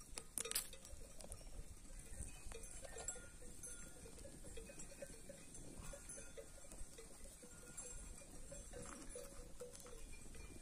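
Bells on grazing sheep ringing faintly and irregularly in small, scattered clinks, with one sharper clink about half a second in.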